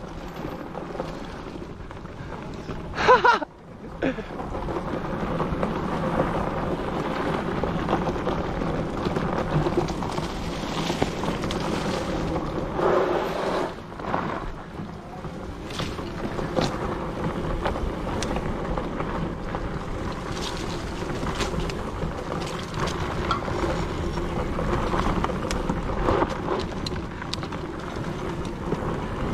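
Electric bike riding fast over a bumpy dirt trail: a steady rumbling rush of tyre noise and wind buffeting the microphone, with small rattles and knocks from the bike over the bumps. About three seconds in there is a short, loud, pitched sound.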